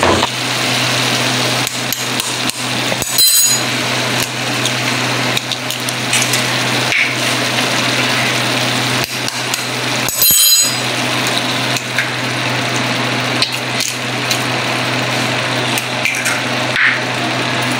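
Masala sizzling steadily in a nonstick frying pan over a steady low hum, with two sharp knocks about three and ten seconds in as two eggs are cracked and dropped into the pan.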